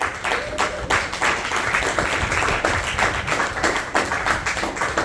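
Audience applauding: many hands clapping densely and unevenly at a steady strength.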